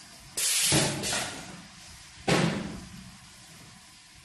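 Pneumatic cylinders of a manual clip spring pin assembly machine firing twice: about half a second in, a half-second blast of air hiss ending in a clunk, then just after two seconds a sharp metallic clack with hiss that fades away.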